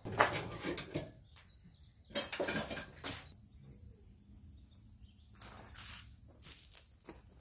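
Metal clattering and scraping for the first few seconds, then a steady high chorus of insects. Near the end comes a short rush and clatter as ash is flung out of a metal bucket onto the ground.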